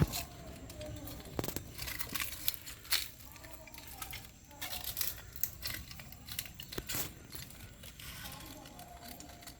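Male jabuti tortoise courting a female: scattered clicks and knocks with a few faint short calls between them, the strange noise of a tortoise wanting to mate.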